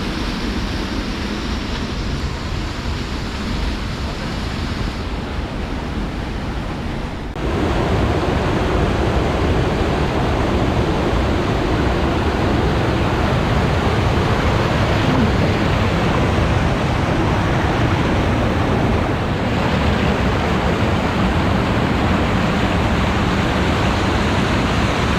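Rushing river water tumbling over rocks, a steady rush that jumps suddenly to a louder, fuller sound about seven seconds in.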